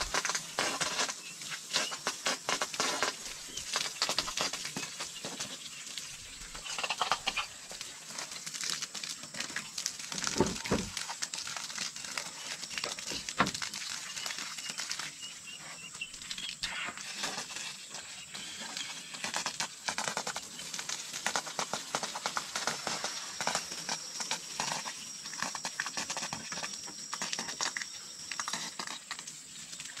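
Water from a hose spattering and pattering onto wooden slats and bare earth, a dense steady crackle of small drops, with a single low thump about ten seconds in.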